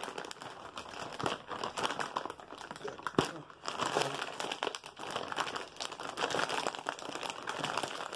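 Plastic snack bag crinkling and crackling as it is handled and pulled at, being hard to open, with one sharp snap about three seconds in.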